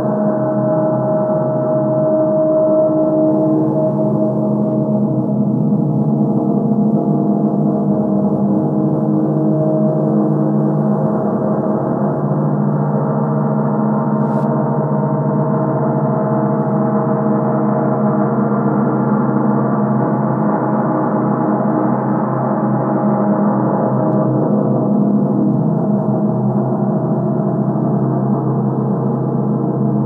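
Gong played in reverse: a steady, dense drone of many overlapping overtones, with no strikes heard.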